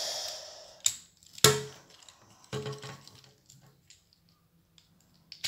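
Plastic parts of a Transformers Siege Springer action figure clicking and rattling as it is folded and pressed together during transformation. Sharp clicks come about one and a half and two and a half seconds in, with fainter ticks after. A soft hiss fades out in the first second.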